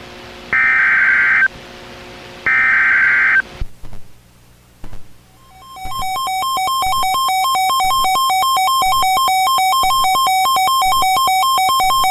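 NOAA Weather Radio Specific Area Message Encoding (SAME) data header: two shrill, screeching digital bursts about a second long each, marking the start of a severe thunderstorm warning. After a short pause, a long electronic attention tone fades in about six seconds in, warbling rapidly between two pitches.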